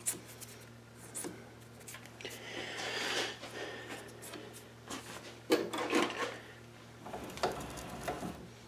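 Fingers rubbing over and inside the freshly bored end of a steel lathe tailstock ram, with light scraping and a few small knocks of handling, loudest a little past the middle. A faint steady low hum lies underneath.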